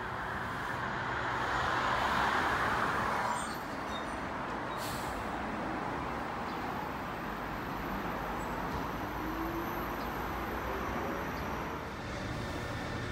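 Street traffic noise: a steady rush of passing vehicles, swelling louder as one goes by about two seconds in.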